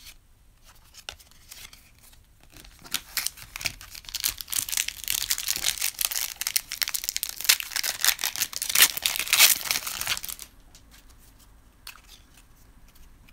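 A trading card pack wrapper being torn open and crinkled by hand, a crackly rustling that builds over several seconds, is loudest near its end, and stops abruptly about ten seconds in.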